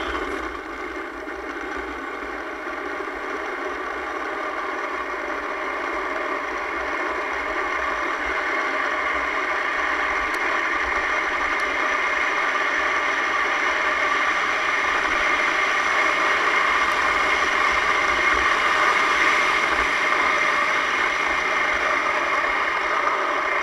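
Steady rolling rumble of a downhill soapbox cart's hard wheels on asphalt, growing gradually louder as the cart gathers speed.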